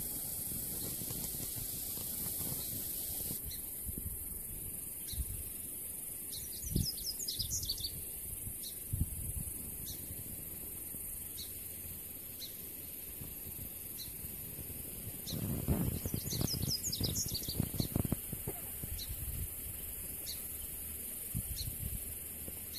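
Open-field ambience: a bird chirps in two short flurries of quick high notes, over a steady hiss. A short high note repeats about once a second, and low rumbling on the microphone rises in the middle.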